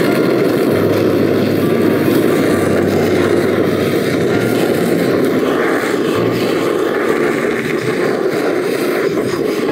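Handheld gas torch flame running with a steady rushing hiss as it sears mayonnaise-topped salmon in a metal mess tin.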